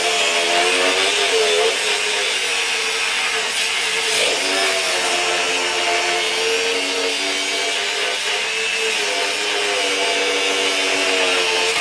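Hercules HCB61P 20V brushless angle grinder cutting 1-inch rebar with a cutoff wheel: steady motor whine over an abrasive grinding hiss, the pitch dipping and recovering as the wheel bites into the steel. The motor keeps powering through the cut without stalling.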